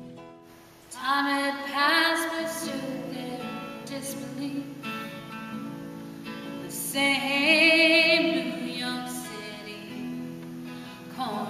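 A woman singing with acoustic guitar accompaniment; her voice comes in about a second in, with vibrato on the held notes.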